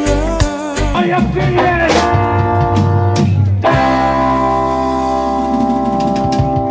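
Live band music: drum hits and a wavering lead line at first, then a held, sustained chord from a little past halfway on.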